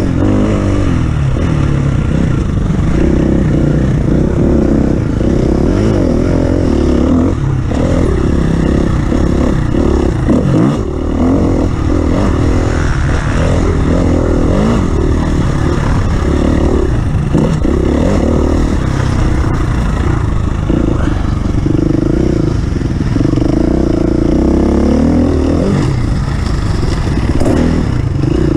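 Off-road vehicle engine running hard, its pitch rising and falling again and again as the throttle is worked over rough ground, with rattling from the vehicle.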